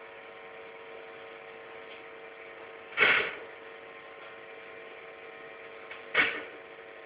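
A steady hum, with two short, sharp sounds about three seconds apart.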